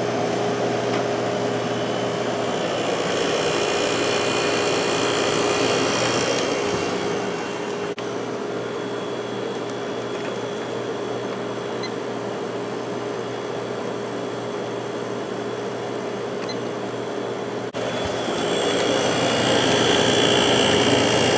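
Window air conditioner running on low fan with its compressor cooling: a steady rush of blown air over a constant hum. The air rush grows louder for a few seconds a few seconds in, and again near the end.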